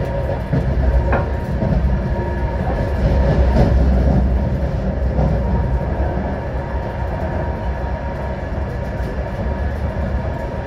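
Passenger train running, heard from inside a carriage: a steady rumble of the wheels on the rails that swells a few seconds in and then settles.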